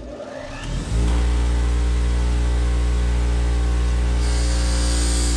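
Bench grinder motor spinning up over the first second, then running at speed with a steady hum. About four seconds in, a high grinding hiss joins as a crimp connector is held to the wheel to grind off its plastic insulation.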